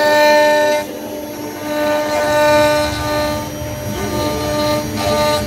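CNC router spindle running with a steady high whine while the bit cuts, the whine strong in the first second, weaker in the middle and stronger again near the end.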